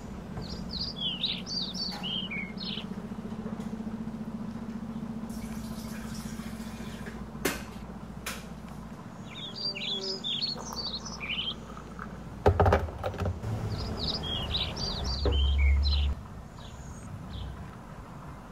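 A songbird singing quick, high, chirpy phrases three times, several seconds apart, over a steady low hum. A few knocks and low thumps come in the second half.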